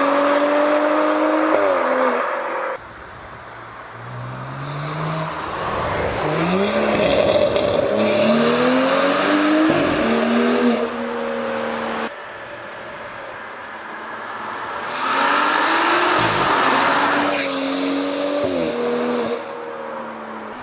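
BMW M135i's N55 turbocharged 3.0-litre straight-six and exhaust revving hard several times, the pitch climbing and then dropping sharply as it shifts or lifts off. The sound breaks off abruptly twice as one recording gives way to the next.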